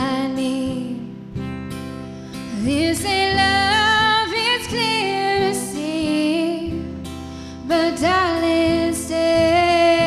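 Slow music with acoustic guitar and a held melody line that slides up into long notes about two and a half seconds in and again about eight seconds in.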